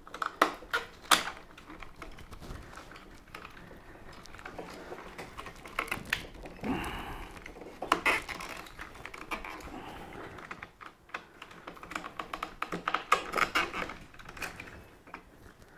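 Irregular sharp clicks and knocks of the lawn mower handle's plastic and metal parts being fitted together by hand, coming in clusters with short rustles between.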